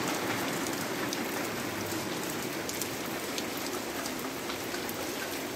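Fairly heavy rain falling steadily: a dense, even hiss with scattered sharp ticks of drops.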